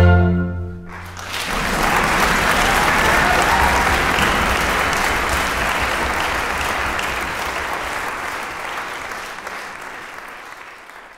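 An orchestra's final chord dies away, and about a second in an audience bursts into applause. The clapping is loud at first, then fades steadily away toward the end.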